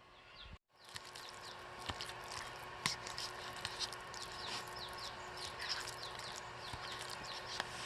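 Small birds chirping: many short, quickly falling notes in rapid succession, with a few sharp clicks, after a brief break about half a second in.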